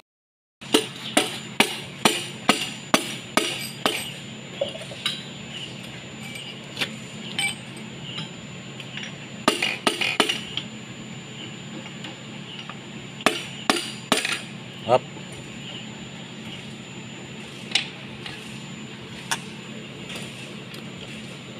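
Sharp metallic taps of a hammer driving a piston and connecting rod up out of a cylinder bore in a Kubota M9540 diesel engine block, during teardown. A quick run of about ten taps, some three a second, comes first, then scattered clusters of taps and single knocks.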